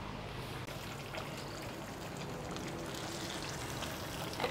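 Kingfish steaks frying in hot oil in a pan: a steady sizzle with faint scattered crackles.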